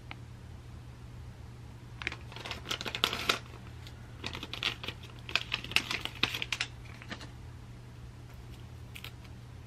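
A paper tea sachet being torn open and the tea bag pulled out: two bursts of crinkling and rustling, about two seconds in and again from about four to nearly seven seconds, with a single soft tick near the end.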